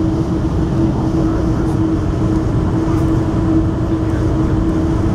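Steady rumble of a moving vehicle heard from inside, with a constant low hum running through it.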